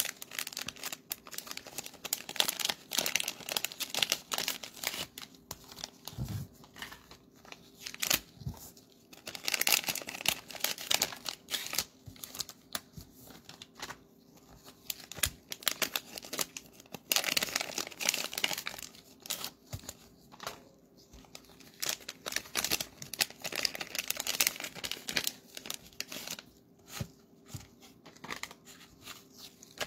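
Plastic cello-pack wrappers of trading cards crinkling and tearing as packs are opened and handled, in irregular crackly bursts.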